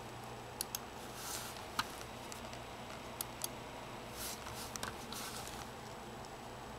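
A few sharp computer mouse clicks, paired twice in quick succession, with a few soft swishes between them over a faint steady hum.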